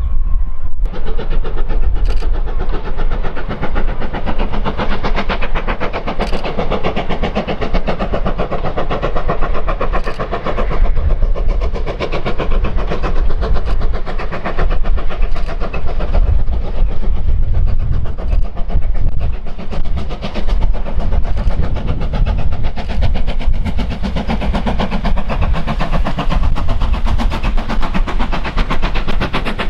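Steam locomotive working a train, a loud steady running noise throughout, with a few sharp clicks.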